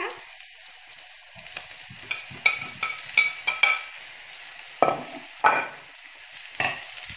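Boiled potato slices frying in a pan of onions and hot oil, with a steady sizzle. About two seconds in comes a quick run of sharp, ringing utensil taps, then a few louder knocks as a spatula stirs the potatoes in the pan.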